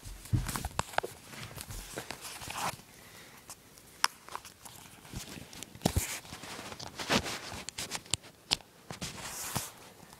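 Irregular clicks, knocks and rustling from a handheld phone camera being moved about and handled, with the loudest knocks about a second in and around six and seven seconds in.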